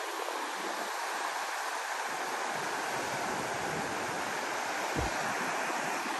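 Shallow river rushing over rocks, a steady hiss of running water, with wind rumbling on the microphone around the middle and a brief low bump about five seconds in.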